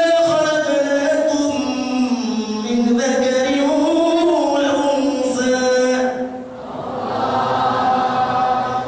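A man chanting a devotional melody into a microphone, unaccompanied, holding long notes that slide slowly up and down. He breaks off briefly about six and a half seconds in, then takes up the chant again.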